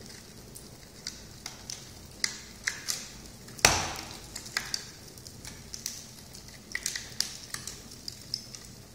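Wood fire burning in an open fireplace, crackling with many irregular small snaps and pops. One much louder pop comes a little under halfway through.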